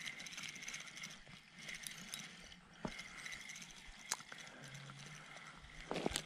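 Spinning reel being cranked to bring in a hooked fish: a faint, steady whirring and ticking of the reel's gears, with a few sharp clicks along the way.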